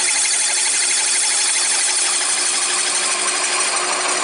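Large step drill bit cutting through aluminium plate under power: a steady, loud, high-pitched cutting noise with a fast chatter.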